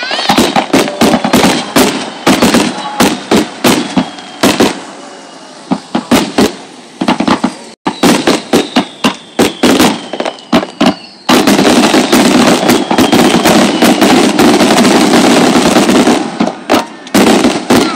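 Sea-launched aerial fireworks bursting in rapid succession: many sharp bangs a second with faint falling whistles. From about eleven seconds in, the bangs merge into about five seconds of dense, unbroken barrage, then separate bangs return.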